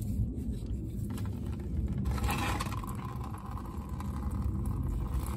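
Radiator drain petcock being twisted open by hand, with a short scrape about two seconds in. A thin stream of coolant then starts to run out of it. A steady low rumble runs underneath throughout.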